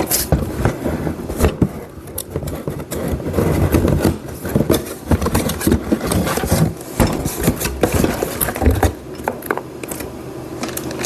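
A cardboard box being opened and its contents handled: irregular rustling and scraping of packaging, with many small knocks and clicks.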